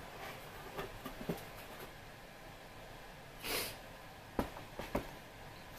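Quiet handling of a cardboard subscription box and packaged makeup items: light clicks and knocks, the two sharpest near the end. About halfway there is a short breath through the nose.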